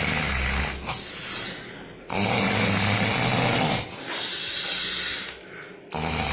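A person snoring loudly: rattling snores come at the start, about two seconds in and again near the end, each running one to two seconds, with quieter breathy hissing between them.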